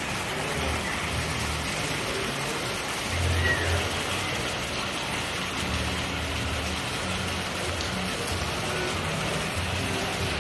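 Rain falling steadily: a dense, even hiss, with an uneven low rumble underneath.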